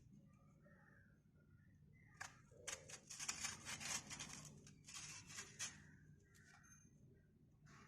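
Raw green mango crunching in a quick series of crisp, close-up bursts, starting about two seconds in and lasting roughly three and a half seconds.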